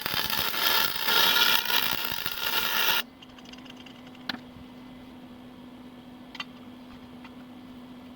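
Welding arc on aluminum, a harsh crackling hiss about three seconds long that starts and cuts off abruptly, over a steady low hum. A few faint clicks follow.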